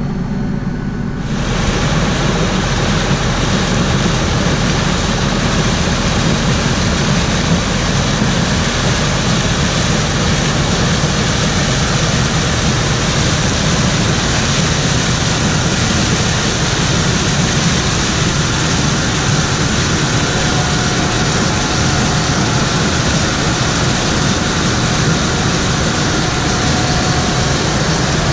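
Farm tractor engine running steadily, with a loud, even rushing noise that comes in suddenly about a second in and holds.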